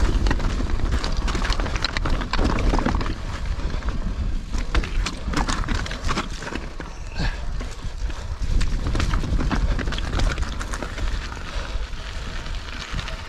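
Mountain bike rattling over loose rocks on a steep, wet rocky descent, with many irregular sharp knocks of tyres and frame striking stone. Under it runs a steady low rumble of wind on the microphone.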